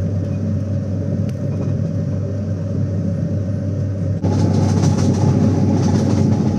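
Steady running noise of an Indian passenger train, heard from inside the carriage. About four seconds in, the sound cuts to a louder, hissier stretch.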